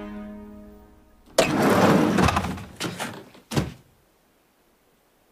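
Sustained music fades out, then a sudden loud crash with a clatter lasting about a second, followed by a few sharp knocks.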